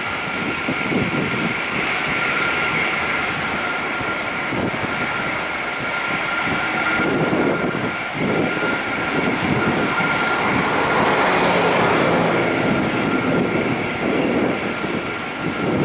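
Airliner jet engines idling while queued on the taxiway: a steady high fan whine over a low rumble. The whine swells briefly about eleven seconds in.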